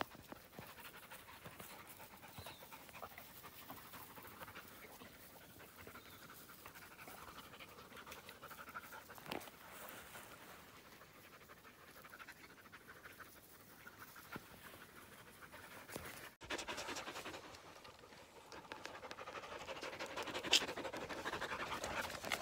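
A dog panting, faint at first, then close and louder for the last several seconds.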